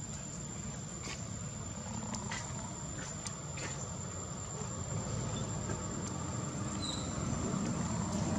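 A steady, thin, high-pitched insect drone from the surroundings, with a few faint ticks and a low rumble that grows louder near the end.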